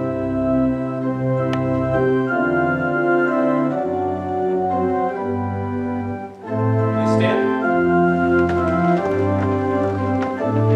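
Church organ playing a hymn tune in slow, held chords, with a short break between phrases about six seconds in.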